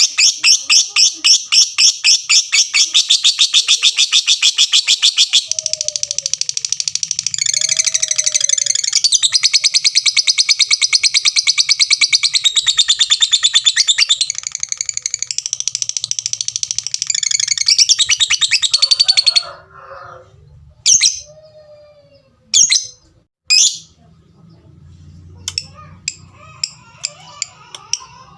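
Lovebird singing: a quick series of ticking notes runs for about five seconds, then turns into a long unbroken high chattering trill, the 'ngekek panjang', that lasts about fourteen seconds and stops suddenly. A few single sharp chirps follow near the end.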